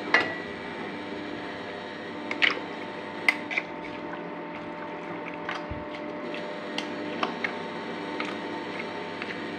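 A spoon stirring chunks of meat with spices and water in a metal pot: wet squishing with a few light clicks of the spoon against the pot, the sharpest about two and a half and three and a half seconds in, over a steady background hum.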